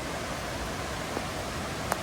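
Mountain river flowing, a steady rush of water, with a faint tick about a second in and a sharper click near the end.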